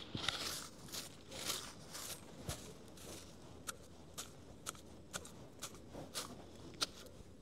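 Small hand digging tool scraping and chopping into grassy soil and roots: a run of rustling scrapes, then sharp separate clicks and taps about a second apart.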